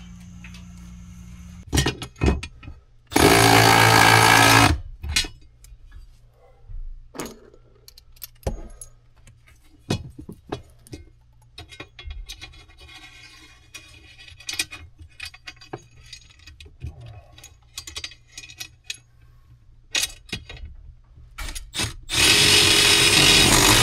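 Installation tool work: scattered sharp clicks and knocks of tools and parts being handled. A power tool runs loudly for about a second and a half a few seconds in, and a loud steady sound starts near the end.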